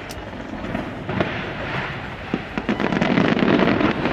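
Fireworks display going off: a dense, continuous crackling of many small bursts, with a few sharper bangs standing out.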